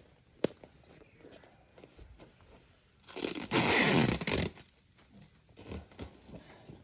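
Packaging being ripped open: a sharp click about half a second in, then a loud tearing sound lasting about a second and a half from about three seconds in.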